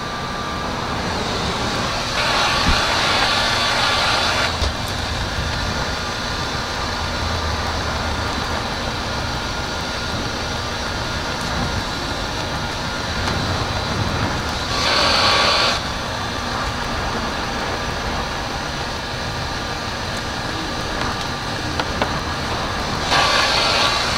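Heat gun running with a steady whir of its fan blowing hot air, used to soften headlight protection film. It gets louder for a second or two three times, about two seconds in, around the middle and near the end.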